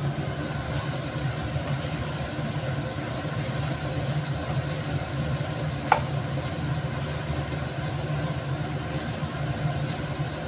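Steady hum of a kitchen fan while macaroni in sauce is stirred with a wooden spatula in a nonstick pan. One sharp knock about six seconds in, the loudest moment.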